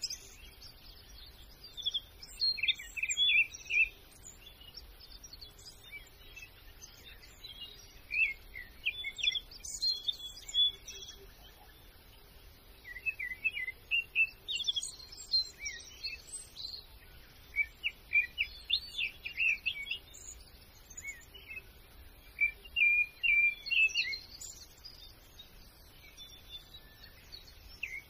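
Small songbirds chirping and singing in quick high phrases, coming in groups with short pauses between them, over a faint steady outdoor background.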